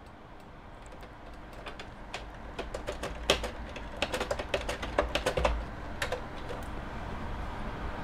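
Typing on a computer keyboard: a run of irregular key clicks, thickest in the middle and stopping about six and a half seconds in.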